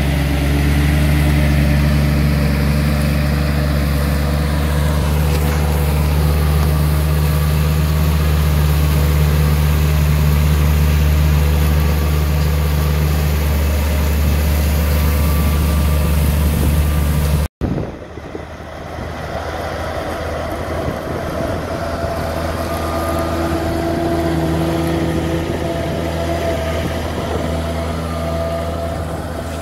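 Tractor engine running steadily under load as it pulls a subsoiler through dry stubble ground. A sudden break comes about halfway through, after which the engine is heard again, somewhat quieter.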